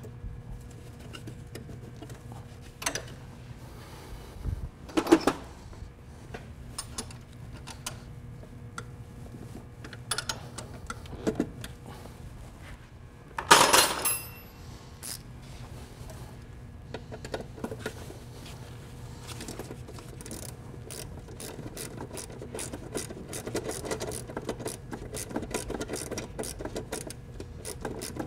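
Wrenches tightening the fuel line fittings and bracket bolts of a fuel filter. Scattered metal clinks and knocks, one louder clatter about halfway through, then a long run of quick clicks near the end.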